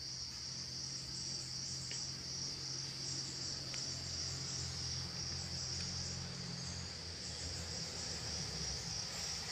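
Steady, high-pitched chirring of an insect chorus, with a low hum underneath and a couple of faint clicks.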